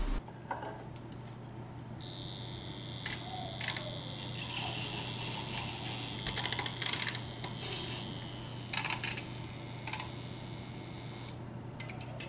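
A metal spoon stirring a drink in a glass mason jar, clinking and scraping against the glass in short runs. Behind it, a steady high-pitched whine runs from about two seconds in until near the end, over a low steady hum.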